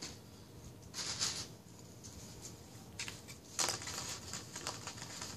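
Dry, crisp dog treats rustling and clicking as they are handled and set onto a plate, in two short spells: one about a second in and one a little past halfway.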